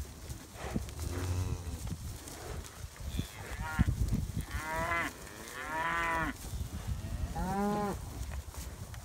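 Several cattle mooing in turn, about five calls, each bending in pitch, with the two loudest back to back around the middle.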